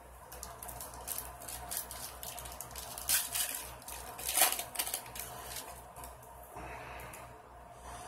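A 2006 Bowman trading-card pack's plastic wrapper being crinkled and torn open by hand. There are two sharp rips about three and four and a half seconds in.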